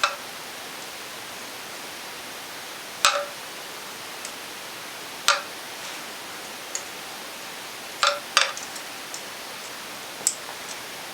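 Metal hand tools clinking against a motorcycle engine's parts: about six short, sharp metallic clinks, two of them close together, over a steady hiss.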